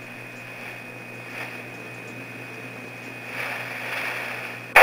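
Fire pager's speaker passing faint, steady open-channel radio hiss with a thin high tone. Near the end a sudden loud burst of static cuts in.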